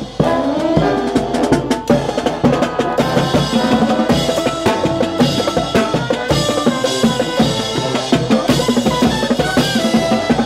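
Marching band playing, the drum line to the fore: rapid snare drum, tenor drums, bass drum and cymbal strokes, with the brass section holding notes behind.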